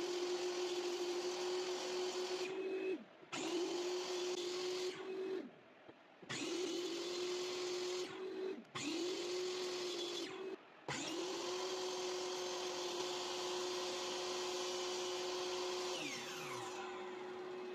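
Woodworking power tool running steadily with a high motor hum and hiss, cut off abruptly several times. Near the end a falling whine is heard as a motor winds down.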